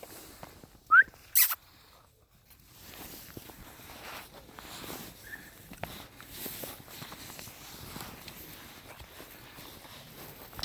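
Belgian Malinois puppies: a short, rising yelp about a second in, followed at once by a sharp, loud sound, then steady scuffling and pattering with one more faint squeak midway.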